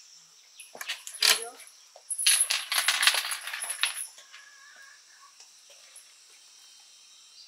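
A few sharp clicks, then about two seconds of quick clinking and rattling of small hard objects knocking together, over a steady high-pitched insect drone.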